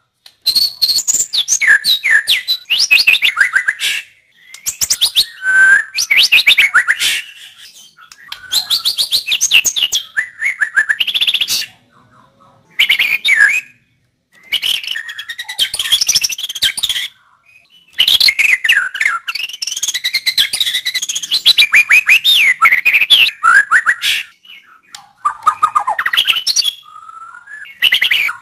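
White-rumped shama (murai batu) singing rich, varied phrases of whistles, rapid trills and sweeping notes. The song comes in bursts of a few seconds broken by short pauses.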